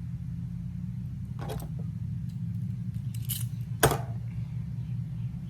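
A few small clicks and a brief scrape from hand work on an iPhone 8 as its screen is being opened, the sharpest click just before four seconds in, over a steady low hum.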